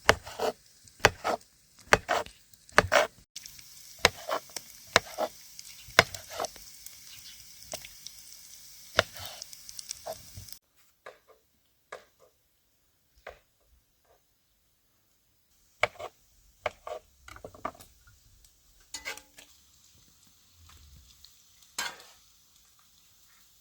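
Food frying in a pan with a steady sizzle, under frequent clicks and scrapes of a utensil stirring it. The sizzle stops suddenly about ten seconds in, leaving scattered knocks and clinks of cookware.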